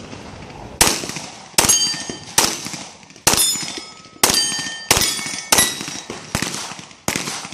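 .40 calibre competition pistol firing a string of about nine shots at a steady pace, roughly one every 0.8 seconds. Many shots are followed by the ringing clang of a steel target plate being hit.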